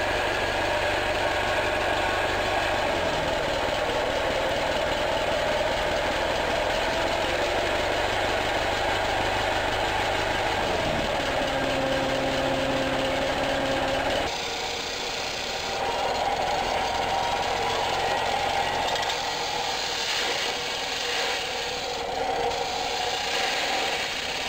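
Twin-piston steam engine running steadily and exhausting steam as it turns a 12 kW generator. About halfway through the low hum drops away and the sound changes.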